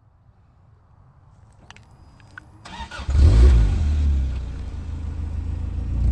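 Toyota AE86 Trueno's engine being started: a few clicks, then it catches about halfway through with a rev and keeps running.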